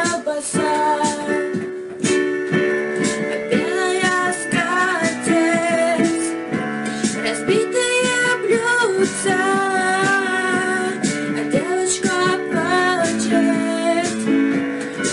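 A woman singing a song with instrumental accompaniment, her voice gliding and wavering across the melody over held chords.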